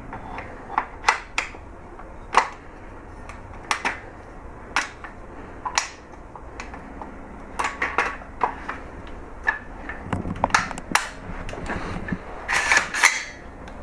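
Irregular sharp metallic clicks and snaps from a freshly assembled AR-15 rifle being handled, with a denser, louder run of clicks near the end.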